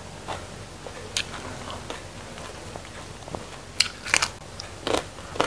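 Close-up eating sounds: chewing and biting into crisp raw vegetables, with a run of sharp, loud crunches in the second half.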